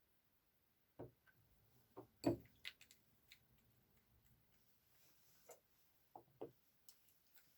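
Scattered faint taps and clicks at an irregular pace, the sharpest about two seconds in, from small objects being handled on a desk.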